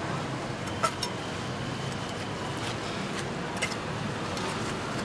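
Steady market background noise with a few light clicks and taps of a butcher's knife working a pork cut on a stainless steel table, the sharpest just under a second in.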